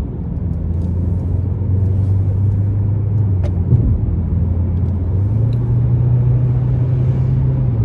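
Car cabin noise while driving: a steady low drone of engine and tyres on the road, stepping up slightly in pitch about five seconds in.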